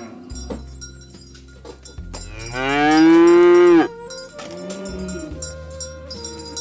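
A cow moos once, loudly and long, about two seconds in, followed by a fainter call, with cowbells clinking throughout.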